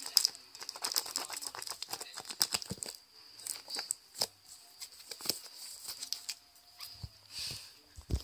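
Scratching and tapping on a paper-covered cardboard box, from a kitten's claws inside it and a hand outside. The clicks come thick and fast for about three seconds, then thin out to scattered single taps.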